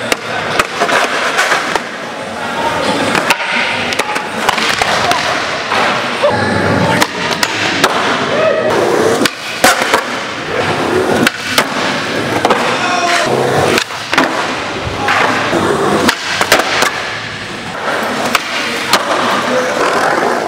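Skateboards rolling on the concrete of an indoor skatepark, with several sharp clacks scattered through as boards are popped and land. Voices are heard faintly in the background.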